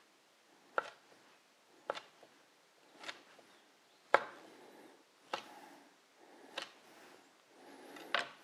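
Chef's knife slicing a crisp-skinned fried chicken thigh into strips, each cut ending in a sharp knock of the blade on a plastic cutting board: seven cuts, about one a second.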